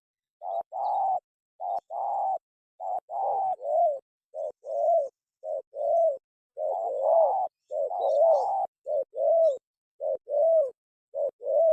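Spotted dove cooing: a long series of short, rounded coo notes in quick groups of two or three.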